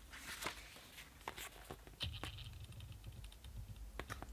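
Faint handling of a paperback manga volume: soft paper rustling and small taps as the book is opened, with a brief rustle about two seconds in.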